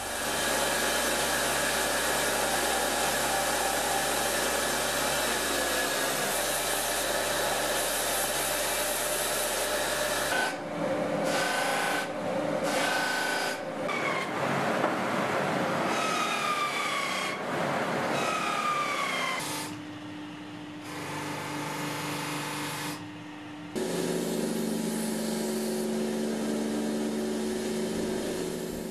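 Electric workshop power tool running: a steady grinding noise for about ten seconds, then shorter spells that start and stop, with pitches that glide and a changing motor hum.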